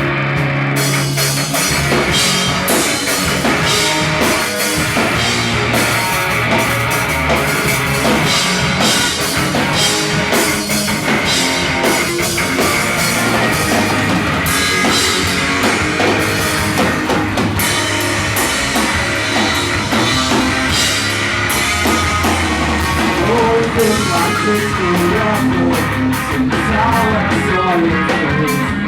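Pop-punk band playing live: electric guitars with a full drum kit, loud and steady, the drums and cymbals coming in hard about a second in.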